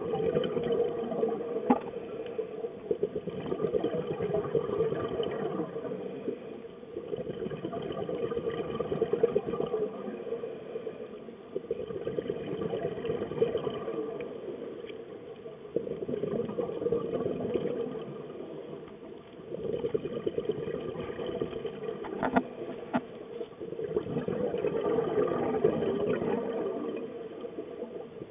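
Scuba diver's regulator breathing heard underwater: bubbling exhalations swelling and fading about every three to four seconds, with a softer hiss in between. A couple of faint clicks about 22 seconds in.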